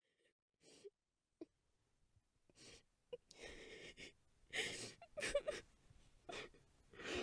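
A person's ragged gasping breaths in short, irregular bursts, some with a brief voiced catch, growing louder through the clip.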